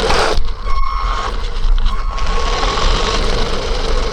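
Electric motor of a fast RC truck whining under throttle. It cuts out briefly about half a second in, then rises in pitch again and holds, over a rushing wash of tyre and wind noise.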